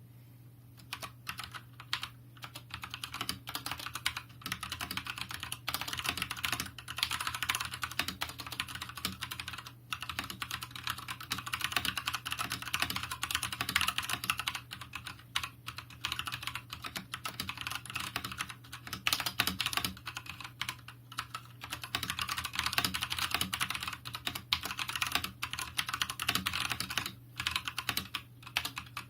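Fast, continuous typing on a Cooler Master MasterKeys S PBT mechanical keyboard with Cherry MX Brown switches and lubed stabilisers, the keystrokes clacking in quick runs with brief pauses.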